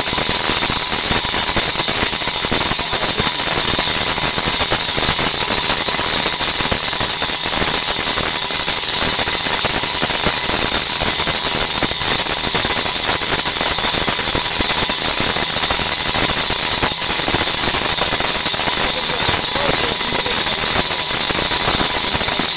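On-car brake disc lathe running, its cutting tips skimming the faces of the spinning brake disc: a steady metallic cutting noise with a faint steady whine.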